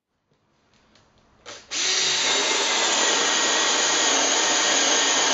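Makita LXT 18-volt cordless drill boring into a timber board. It is faint at first, then from about a second and a half in it runs loud and steady as the bit cuts through the wood.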